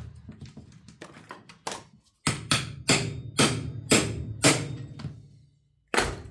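Sharp metallic knocks on the saw's parts: a run of about half a dozen, roughly half a second apart, each with a short ring, then one more knock near the end.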